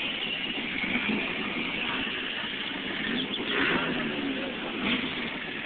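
A classic car driving slowly past, its engine running under a steady hiss of street noise, recorded on a phone.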